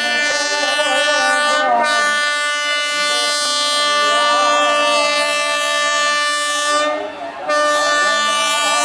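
Diesel locomotive's horn blowing one long, steady blast, which breaks off briefly about seven seconds in and then sounds again. Voices from the crowd can be heard faintly underneath.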